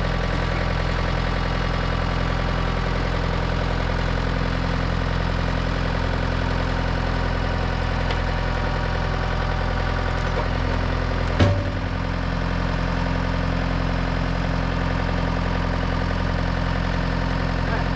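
An engine idling steadily, with a single sharp knock about eleven and a half seconds in.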